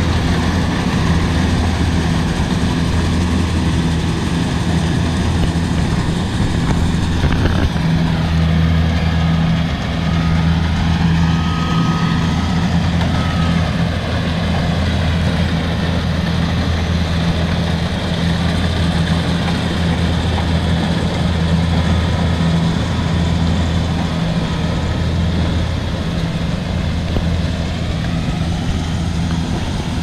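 Kubota combine harvester's diesel engine running at a steady pitch as the machine harvests rice, a continuous low drone with the rattle of the machinery over it.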